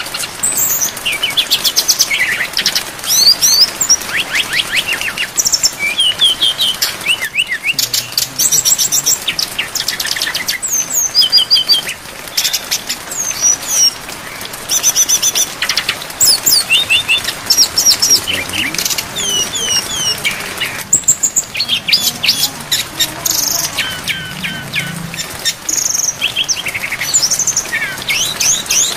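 Brown-chested jungle flycatcher song: a fast, dense run of varied chirps, rapid trills and short whistled slurs with only brief pauses, over a steady hiss of falling rain.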